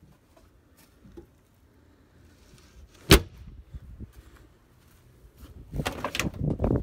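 A single sharp knock about three seconds in. Near the end comes a quick run of clicks and rattles as the chrome exterior door handle of a 1984 GMC Suburban ambulance is pulled and the door latch releases.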